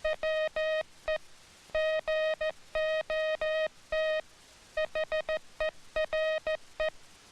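Morse code sent as a steady beeping tone keyed on and off in short dits and long dahs. It forms a short three-word phrase: tight gaps between the dits and dahs of each letter, longer gaps between letters, and two longer pauses, about a second and about four seconds in, that mark the word spaces.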